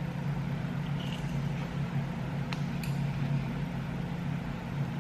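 Steady low mechanical hum, with a couple of faint clicks about two and a half seconds in.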